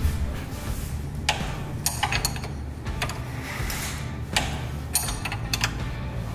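Ratchet wrench with a 19 mm socket clicking in short, irregular spells as a bolt on the front suspension is turned, over steady background music.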